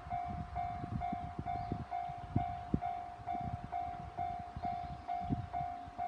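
Japanese railway crossing's electronic warning bell ringing at about two dings a second, one steady pitch, signalling that a train is approaching. Irregular low thumps sound underneath.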